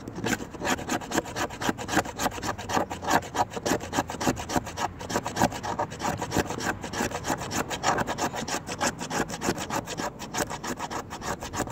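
A knife blade shaving fine curls off a fatwood knot, resin-rich pine, in quick, even scraping strokes, several a second.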